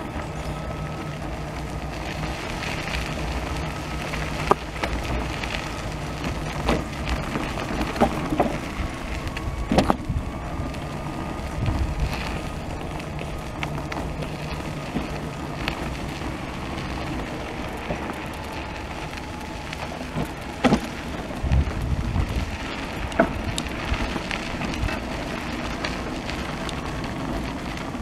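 Electric wheelchair driving uphill: a steady motor hum and faint whine under tyre rolling noise, with scattered sharp knocks as it rolls over bumps in the path.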